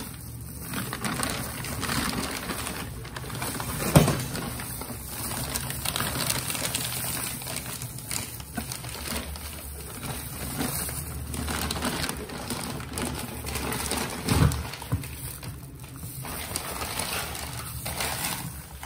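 Clear plastic wrapping and thin plastic gloves rustling and crinkling as the wrap is pulled off a cylindrical appliance. There is a sharp knock about four seconds in and a dull thump about three-quarters of the way through.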